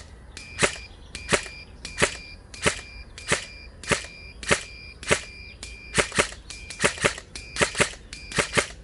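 Lancer Tactical LT-02 M4 CQBR electric airsoft rifle, run on an 11.1 V battery, firing single shots: about twenty sharp cracks, roughly one every 0.7 s at first, then quicker and uneven. Each crack is followed by a short ringing ping from the target being hit.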